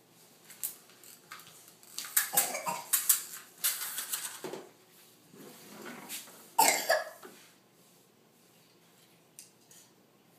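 Several short coughs or cough-like grunts with sharp clicks and knocks among them, in an uneven cluster lasting about seven seconds.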